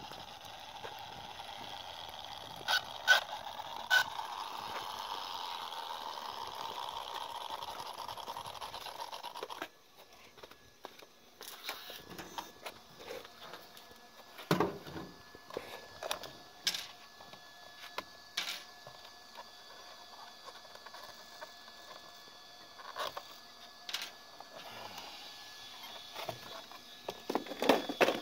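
Traxxas Rustler's Castle 2200kV brushless motor whining steadily as the RC car runs down the road, slowly fading, with three sharp clicks a few seconds in. After a cut about ten seconds in come faint scattered clicks and scrapes of hands handling the car.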